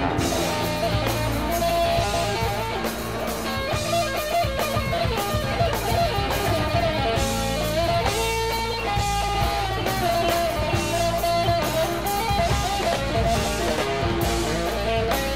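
Background music led by guitar, continuous and at a steady level.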